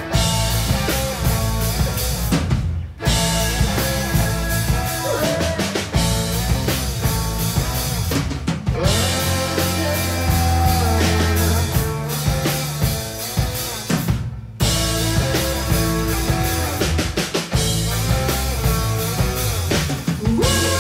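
Live rock band playing with drum kit, bass, electric guitar and viola. The band stops dead for a moment twice, about 3 seconds in and again near the middle, before crashing back in.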